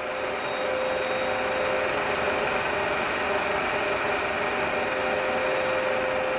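Vintage film projector running: a steady mechanical whir with a constant hum.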